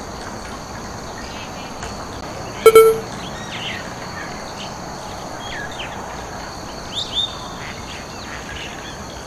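Outdoor ambience: insects buzzing steadily with two high, even tones, and birds chirping now and then. One loud, short pitched call stands out about three seconds in, with two smaller chirps about seven seconds in.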